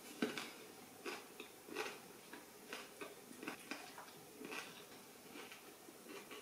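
A person chewing food close to the microphone: soft, irregular mouth smacks and clicks, about one or two a second.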